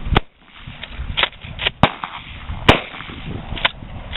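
Shotgun shots fired at clay targets: three sharp reports, the loudest near the three-second mark, with a few fainter cracks among them.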